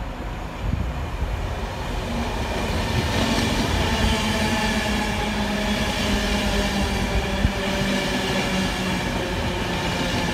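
InterCity 225 express, led by its Mark 4 driving van trailer, passing through the platform at speed: a rush of coach wheels on the rails that builds over the first two seconds and then holds steady, with a whining tone over it. A single sharp click comes about seven seconds in.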